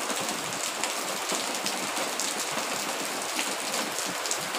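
Heavy rain falling steadily on paving, a dense even hiss with many individual drops ticking through it.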